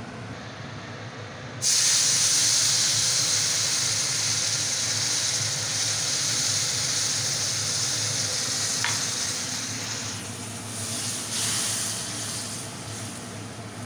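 Milk poured into a hot pan of semolina roasted in ghee, sizzling and hissing loudly as it hits. It starts suddenly about two seconds in and slowly dies down, with two brief surges of hissing near the end.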